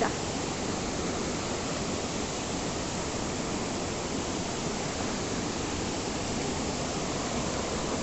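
Steady rush of water from a rain-fed forest stream running over rocks and small falls.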